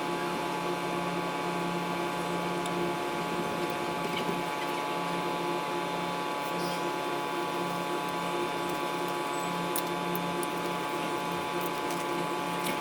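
A steady electrical hum made of several held tones, with a few faint clicks.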